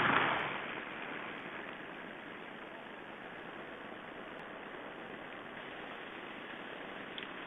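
A flock of small birds flushing off the snow together: a sudden whirr of many wings at the start that fades over about a second, followed by a steady hiss.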